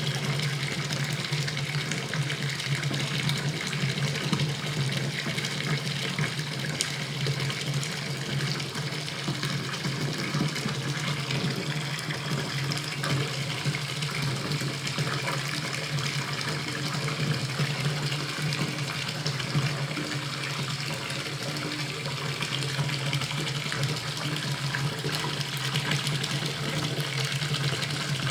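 Bathtub filling with water from the tap, a steady, unbroken rush and splash of running water.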